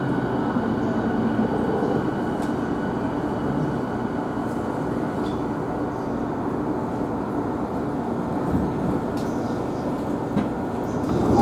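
Running noise of a JR East E217 series electric train, heard from inside a motor car: a steady rumble of wheels on rail with a few faint steady tones from the running gear.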